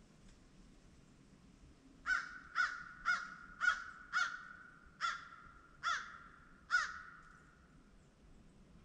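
A crow cawing: a series of eight caws beginning about two seconds in, the first five in quick succession, then spaced further apart.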